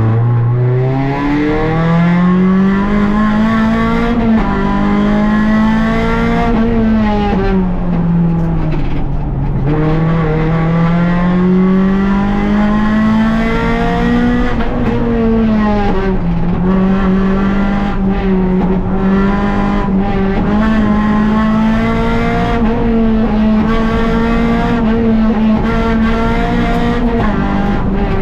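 Rally car engine heard onboard at stage pace, its revs climbing and falling as the car is driven hard, with deep drops about nine and sixteen seconds in.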